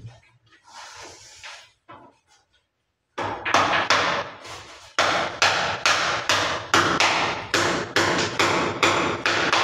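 Hand hammer striking high on a wall, a quick run of sharp blows at about three a second, starting about three seconds in after a near-silent pause.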